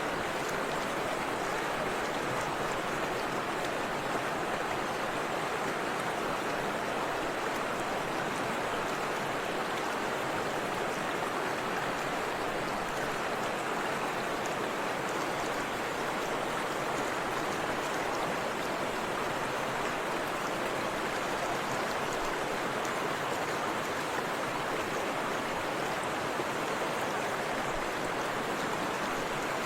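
Forest river water rushing and splashing in a steady, unbroken flow.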